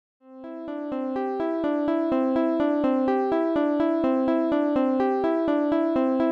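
Background music: a keyboard or synthesizer pattern of quick, evenly spaced notes, about four a second, that starts just after a brief silence.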